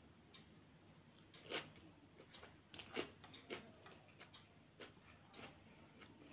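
Faint chewing of a hand-fed mouthful of pulao, with a few short sharp crunching clicks, the loudest about one and a half and three seconds in.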